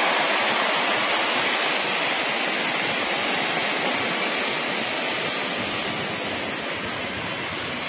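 Large arena crowd applauding, the applause slowly fading.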